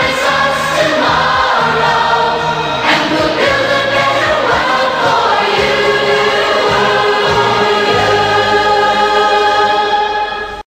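Background music: a choir singing a song with long held notes, cutting off suddenly just before the end.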